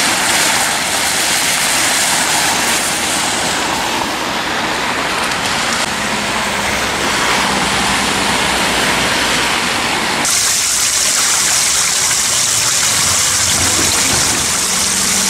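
Cars driving on a rain-flooded street, tyres hissing and splashing through standing water. About ten seconds in it cuts to rainwater rushing over the pavement, a steady high hiss.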